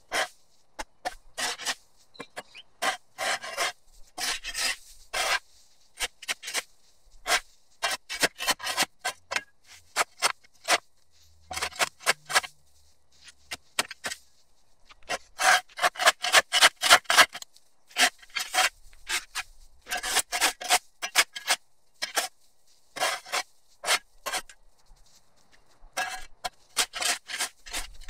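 A steel shovel blade scraping and chopping along a concrete curb, cutting back overgrown turf and dirt. Repeated short strokes come in quick runs, with brief pauses between runs.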